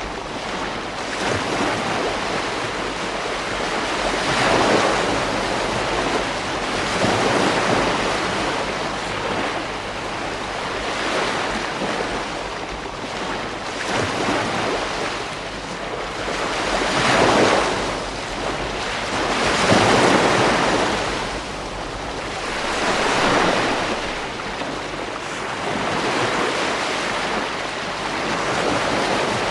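Ocean waves breaking and washing on a beach, a steady surf hiss that swells every few seconds as each wave comes in.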